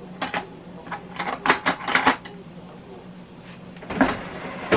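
Metal kitchen utensils clinking and clattering in a drawer as they are rummaged through in search of a knife. The clatters come in short clusters, and there is one more knock about four seconds in.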